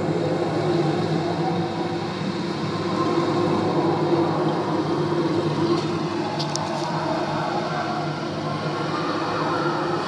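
Steady rushing, rumbling roar of a waterfall sound effect from an animated film soundtrack, heard through a TV speaker, with a few faint ticks about six and a half seconds in.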